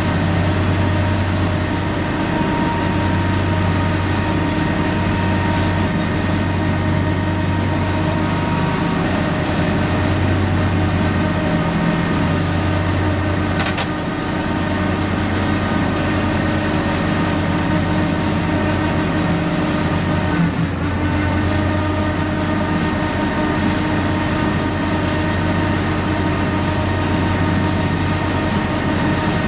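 John Deere 3025e compact tractor's three-cylinder diesel running steadily under load, driving an 8-foot rear finish mower off the PTO as it cuts long grass. A steady low hum with a few fixed tones above it, swelling and easing slightly every few seconds.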